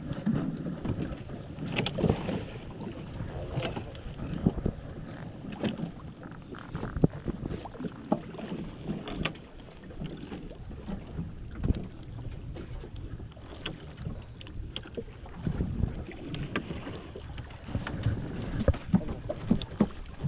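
Small fishing boat with a shrimp gill net being hauled aboard by hand: irregular knocks and handling noises against the boat, over the low rumble of wind on the microphone.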